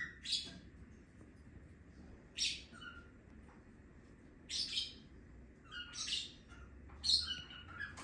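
Young rosy-faced lovebird giving short, high chirps, about six of them spaced a second or two apart.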